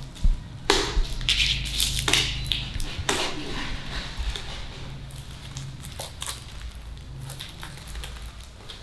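Sticker sheet crinkling and rustling as kittens paw and bite at it, with scattered light clicks, busiest in the first three or four seconds.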